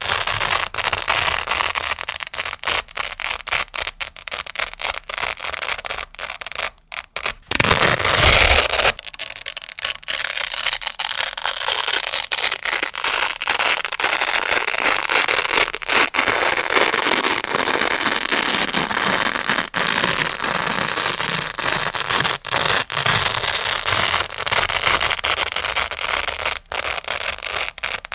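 Grey Velcro (hook-and-loop) pad being scratched and rubbed close to the microphone: a dense, crunchy crackle with many brief breaks, and a louder unbroken stretch about eight seconds in.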